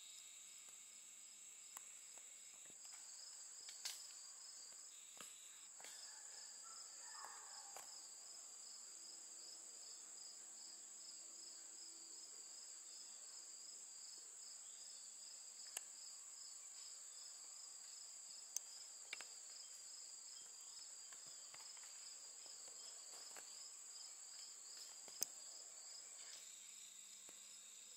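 Crickets and other insects singing. A steady high-pitched drone runs throughout, and a second, pulsing insect trill joins it about three seconds in and stops shortly before the end. A few sharp clicks fall in between.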